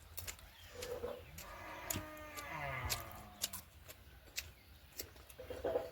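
Eating mouth sounds while chewing pork: a run of sharp wet clicks and smacks, with a short falling hum about two seconds in.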